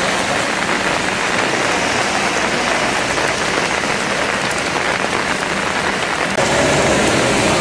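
Rain falling steadily onto shallow standing water, a continuous hiss of drops on the surface. About six seconds in, the sound turns louder and a low rumble joins it.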